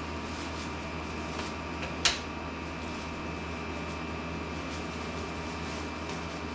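Gift wrapping paper rustling in a few faint short crinkles as a present is unwrapped, with one sharp crackle about two seconds in, over a steady room hum.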